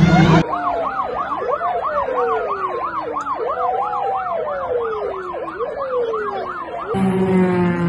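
Emergency vehicle sirens: a fast yelp sweeping up and down about three times a second, over a slower wail that falls over a couple of seconds and rises again. The sirens start suddenly about half a second in and cut off about a second before the end.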